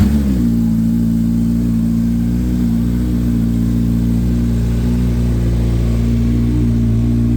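Kawasaki Z900's inline-four engine, breathing through a REMUS aftermarket exhaust, starts up abruptly, flares briefly, then settles into a steady idle.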